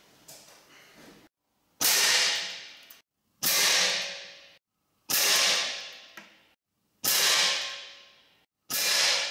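A string of five .22 gas-ram break-barrel air rifle shots, each a sharp crack that rings out and fades over about a second in a reverberant indoor range. The shots come about every second and a half, cut back to back with silence between.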